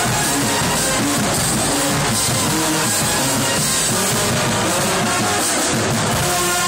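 Marching band playing loudly: brass with low notes moving underneath, and drums.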